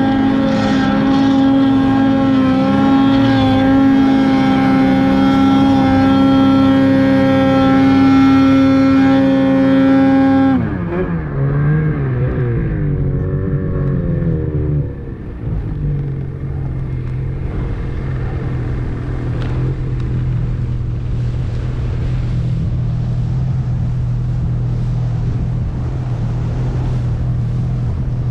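Snowmobile engine running at steady high revs while the sled is ridden. About ten seconds in, the throttle comes off and the revs fall away and waver for a few seconds. The engine then settles into a steady low idle.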